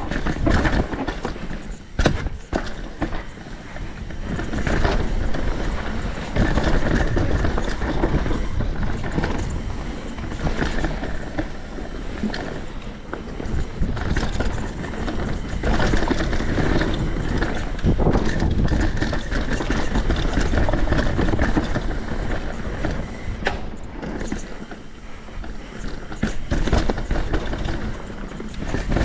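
Santa Cruz V10 downhill mountain bike ridden fast down a rough trail: a continuous rush of tyre and wind noise that swells and dips, with sharp knocks about two seconds in and again late on.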